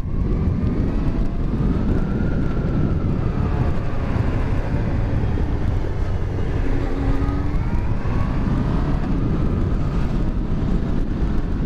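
Yamaha FZ1 inline-four motorcycle engine running while riding, with a steady low rumble and its pitch rising and falling gently.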